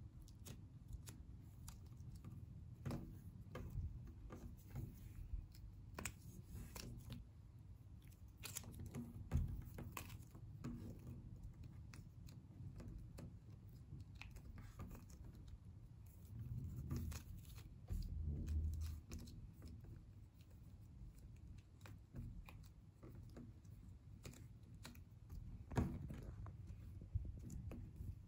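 Faint handling noises of hands pulling and twisting strands of plasticine together on a stone countertop, with scattered light taps and a few soft bumps.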